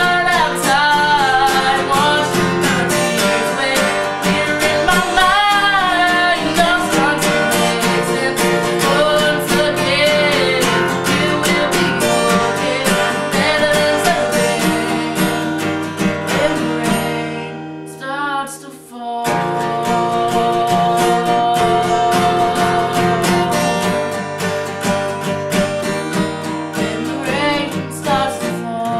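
Song performance: acoustic guitar strummed as accompaniment, with a sung melody over it in roughly the first ten seconds. The guitar drops away briefly about two-thirds of the way through, then carries on.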